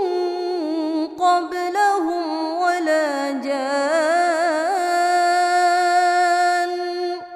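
A woman reciting the Quran in a melodic, sung style, her voice turning through quick ornamental runs and then holding one long note that fades at the very end.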